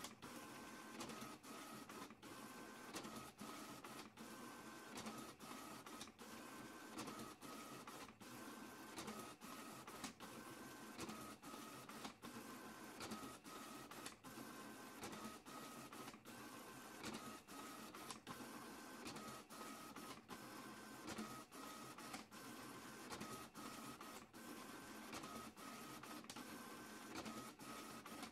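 Printer printing a page, running faintly with a repeating whir that steps between two pitches every second or so.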